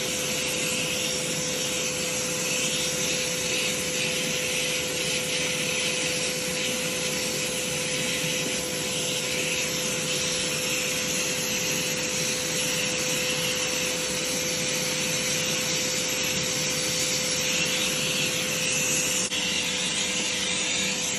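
Armor All AA255 2.5-gallon, 2 peak HP wet/dry shop vacuum running steadily: a loud rush of air with a steady motor hum.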